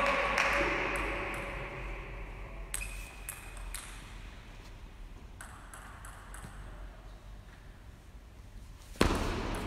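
Celluloid-type table tennis ball clicking: a few bounces before the serve, then a quick exchange of racket hits and table bounces, with one much louder sharp crack about nine seconds in. Crowd noise from the previous point fades away during the first two seconds.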